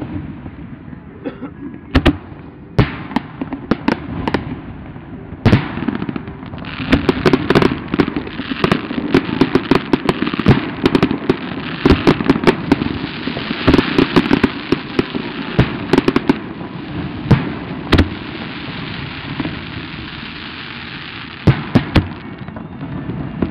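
Aerial fireworks shells bursting with sharp booms. A few single bangs at first, then a dense volley of rapid bangs and crackle for about ten seconds, thinning back to a few single booms near the end.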